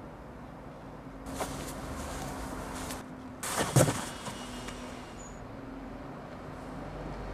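A rushing noise for a couple of seconds, then a single sharp thump a little under four seconds in.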